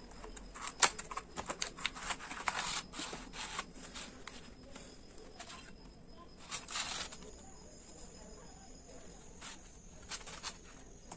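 Oil pastel set being handled: a cardboard box opened and its plastic tray slid out, then pastel sticks pulled from the tray and set down on paper. Quick clicks and rustles come thickly in the first few seconds, a short rustle just before the middle and a few soft clicks near the end.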